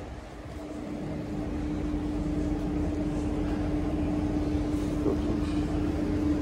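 Steady mechanical drone with one constant hum over a low rumble, from machinery in a truck repair bay, growing louder over the first two seconds and then holding steady.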